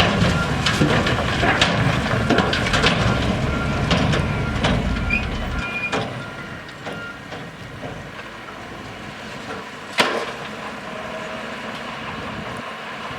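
Heavy earthmoving machinery at work: a diesel engine rumbling amid repeated clanks and knocks of rock and metal. After about five seconds the rumble drops away to a quieter steady background, and one loud knock comes near the end.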